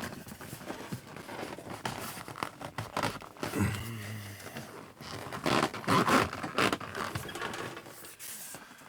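Truck sleeper curtain rustling and scraping as it is slid and pushed into its mounting gap, in irregular bursts that are loudest a little past halfway.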